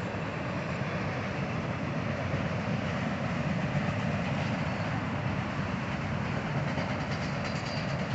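Freight train cars rolling past on the tracks, a steady noise of wheels on the rails.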